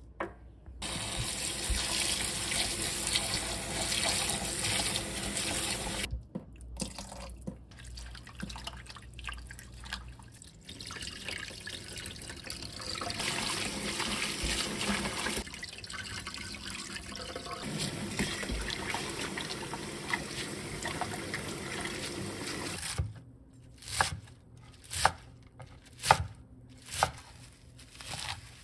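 Tap water running into a stainless steel bowl as Korean mint leaves are swished and rinsed in it, stopping and starting a few times. Near the end, a kitchen knife chopping through the leaves on a wooden cutting board, about one cut a second.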